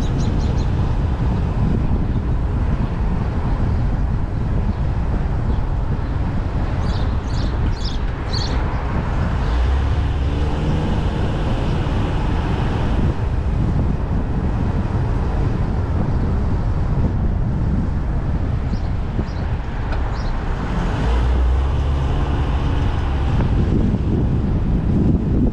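City street traffic: vehicles running steadily, with wind rumbling on the microphone, a few short high squeaks about seven to eight seconds in, and a deeper engine hum swelling twice as vehicles pass close.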